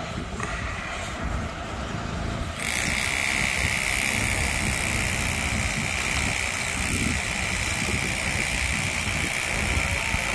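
Demolition machinery at a steel railway bridge: an engine running steadily with a low rumble, joined abruptly about two and a half seconds in by a steady high whine and hiss that carries on to the end.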